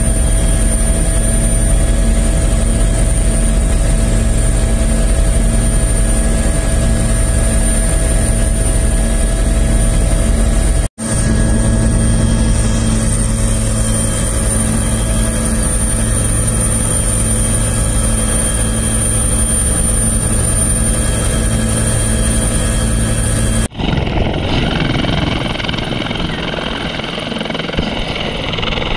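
Helicopter turbine and rotor running steadily, as heard from the air, with a high whine over a low drone and a brief cut about 11 s in. About 24 s in, the sound switches abruptly to a helicopter hovering low overhead, heard from the ground, rougher and noisier.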